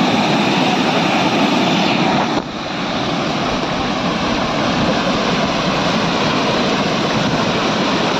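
Steady rush of water from a waterfall, with a brief dip in level about two and a half seconds in.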